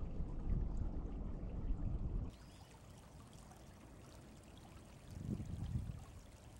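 Wind buffeting the microphone with a low rumble for about the first two seconds, then cutting off suddenly. What follows is quieter river water running and trickling, with a brief swell of rumble about five seconds in.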